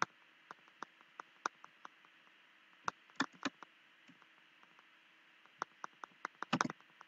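Computer mouse clicks and keyboard key presses: a string of irregularly spaced sharp clicks, with a pause in the middle and a quick flurry near the end, over a faint hiss.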